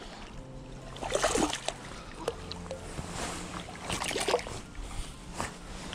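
Small hooked European sea bass thrashing and splashing at the surface of shallow water as it is drawn in on the line. The splashing comes in two bursts, about a second in and around four seconds in, with a few sharp clicks between them.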